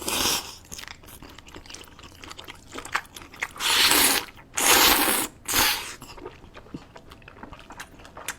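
Close-miked mukbang eating: chewing and crunching with small wet clicks, broken by four loud, noisy bursts of eating sound, one at the start and three between about three and a half and six seconds in.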